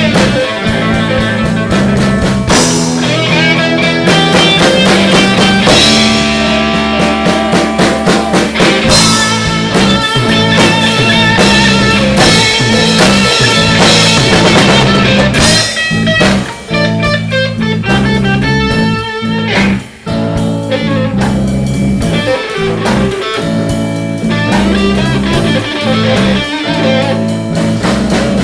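Live blues-rock band playing an instrumental break: electric guitar lead over bass and drum kit, without vocals.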